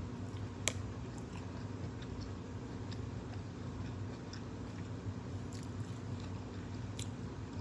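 Close-up chewing of a mouthful of broccoli, with soft wet mouth clicks and one sharper click about a second in, over a steady low hum.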